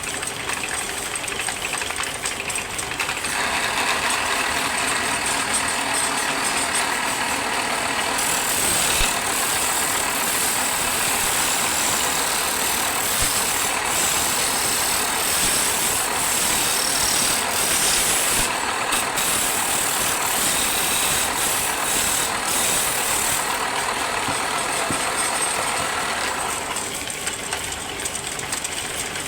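Wood lathe running steadily. A louder hiss joins about three seconds in and falls away near the end.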